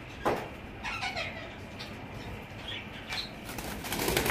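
Caged aviary birds, among them cockatiels, giving a few short falling chirps, with a sudden sharp burst of noise about a quarter second in. Near the end comes a rapid fluttering of wings as the birds take fright.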